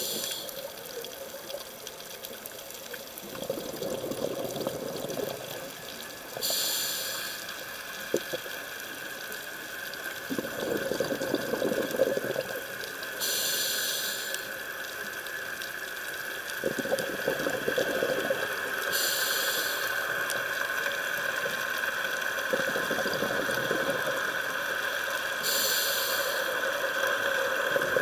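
Scuba diver breathing through a regulator underwater, heard through the camera housing. A short hiss on each inhale is followed a few seconds later by a rush of exhaled bubbles, about every six seconds, over a steady faint high tone.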